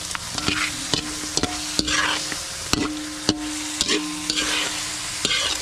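A metal spatula scrapes and knocks against a large metal wok while stirring meat frying in a thick sauce, with about a dozen knocks. After several knocks the wok rings with a low held note, over a quiet sizzle.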